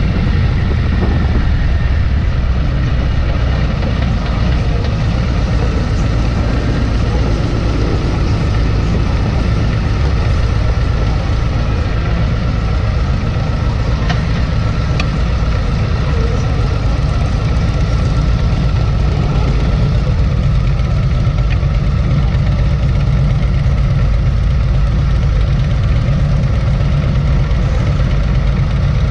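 Bagger motorcycle engine running steadily at low speed, close up, settling to idle as the bike comes to a stop.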